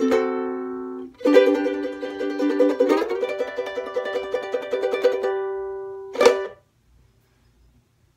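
Kiwaya KTS-4 soprano ukulele played clawhammer style: a chord rings out, then a quick run of picked and brushed notes follows. It ends on a final strummed chord about six seconds in that is damped short.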